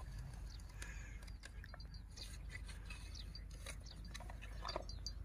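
Faint scattered rustles and scrapes of dry straw and soil, with a few short high chirps near the end.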